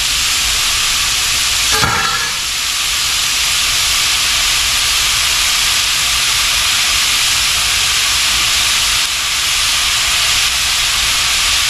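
Ground beef frying in a cast-iron skillet: a steady sizzle, with one brief knock about two seconds in.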